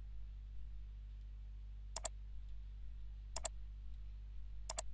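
Computer mouse button clicking three times, each a quick press-and-release pair, about a second and a half apart, over a steady low hum.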